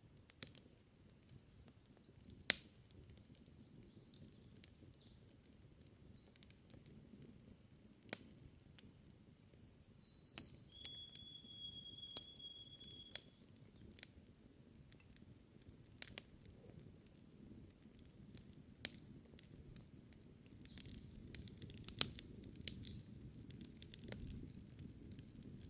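Campfire crackling, with a dozen or so sharp pops scattered irregularly over a low steady rumble. Birds call in the background: short high chirps, and one long whistled note near the middle.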